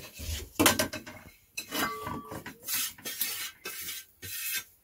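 Metal pot and pot cover clattering as the pot of baked pudding is covered: a run of uneven knocks, clinks and scrapes, with a brief ring about two seconds in.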